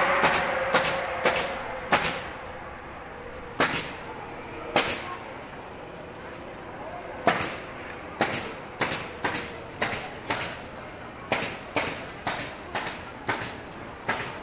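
Footsteps of hard-soled shoes clicking on the paved sidewalk, settling into a steady walking pace of about two steps a second. A passing car fades away in the first couple of seconds.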